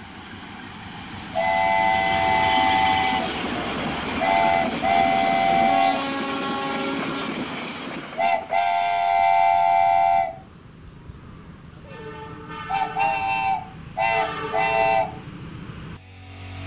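Train horn blowing a long blast, then a short toot and a longer blast, then another long blast about eight seconds in, over a steady rumble of a running train. After the rumble stops, several quick short toots follow.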